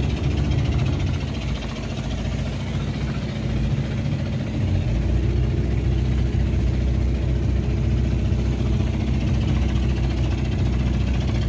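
Fishing boat's inboard engine running steadily, its low note growing stronger about five seconds in.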